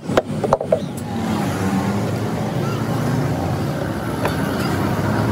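Steady rumble of a running engine, with a few sharp metallic clicks in the first second.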